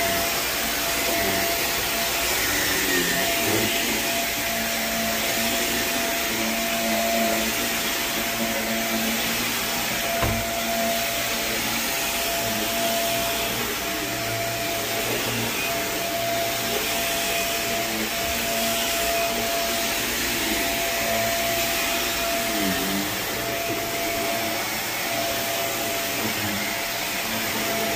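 Vacuum motor of carpet-cleaning equipment running steadily, with a constant whine over an even rushing noise.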